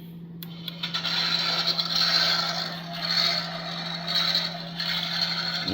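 Small electric motor driving the straight-cut plastic gears of a die-cast Ecto-1 model's roof light bar, running with a scraping, grinding whir that swells and fades about once a second. The loudness comes from the straight-cut gears.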